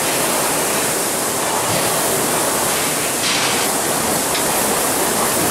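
Steady rushing noise of moving air, with no clear rise and fall.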